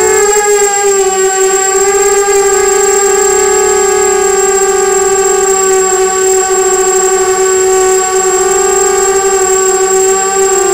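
Motors and propellers of a 250-size FPV racing quadcopter whining steadily, recorded close up by its onboard camera; the pitch jumps up at the very start as the throttle is raised, then holds with small wavers. A thin high-pitched whistle sits above it throughout.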